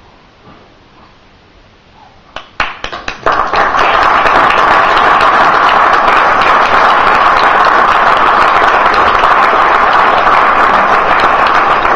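Audience applause: a few scattered claps about two and a half seconds in, swelling within a second into loud, sustained clapping.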